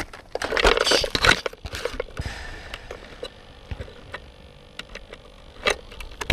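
Close handling noise from hands working at the RC car's wiring and connectors beside the on-board camera, likely sorting out an electrical fault: a loud burst of rustling and scraping about half a second in, then scattered small clicks.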